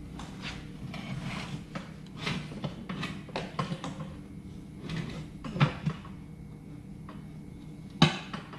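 Scraping and clanking of hand tools working an old tire off its wheel rim, metal and rubber knocking irregularly, with louder knocks about five and a half seconds in and near the end.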